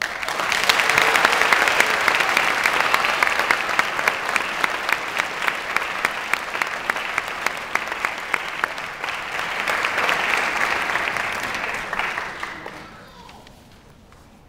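Audience applauding in a hall, with sharp close-by hand claps standing out. The applause dies away near the end.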